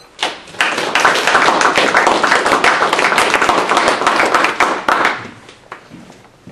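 Audience applauding, many hands clapping together. It swells within the first second and dies away after about five seconds.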